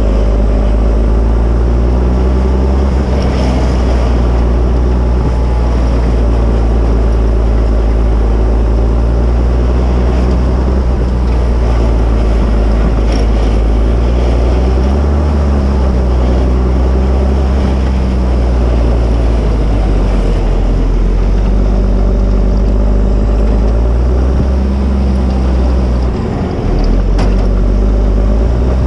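Fendt 720 tractor's six-cylinder diesel engine running steadily under load while pushing heavy snow with a front plow. Its pitch rises briefly about halfway through and dips for a moment near the end.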